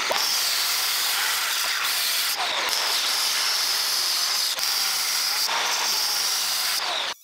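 Power saw cutting aluminum plate: a loud, continuous hissing cutting noise with short breaks about every three seconds, cutting off suddenly near the end.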